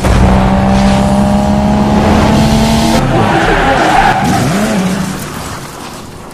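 Loud car sound: steady engine-like tones for about three seconds, cut off abruptly, then a squealing passage that fades away over the last seconds.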